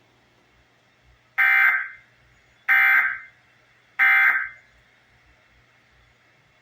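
Emergency Alert System End of Message (EOM) tones: three short bursts of screechy digital data tone about 1.3 seconds apart, each about half a second long, signalling the end of the test alert.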